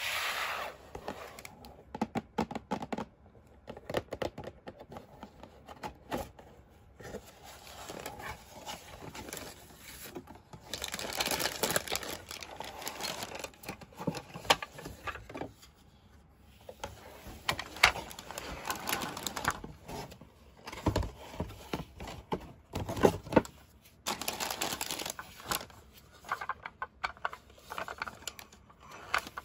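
Paper packaging crinkling and rustling as it is unwrapped by hand, with some tearing, and scattered clicks and taps from a plastic toy and its packaging being handled.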